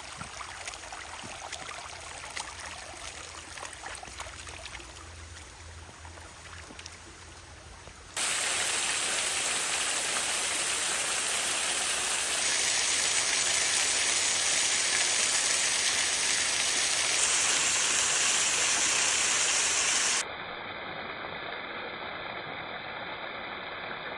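Rushing water of a waterfall and stream, a steady hiss heard in several cut-together clips: quieter at first, much louder from about a third of the way in, and dropping back near the end.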